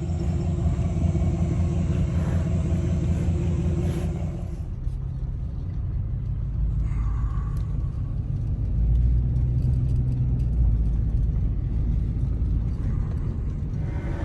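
A motor vehicle's engine running with a steady low rumble, its note shifting about five seconds in.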